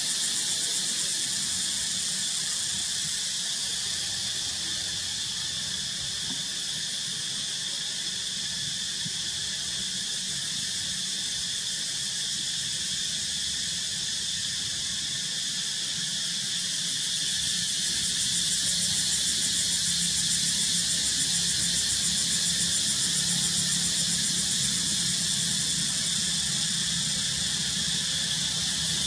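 Steady high-pitched insect drone with a fine, rapid pulsing, with a low hum beneath that grows a little louder about two thirds of the way through.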